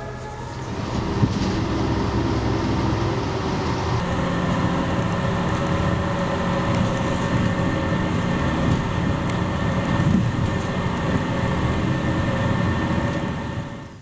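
Inside a moving bus: steady engine and road rumble with a few clicks, rising in about a second in and cutting off abruptly near the end.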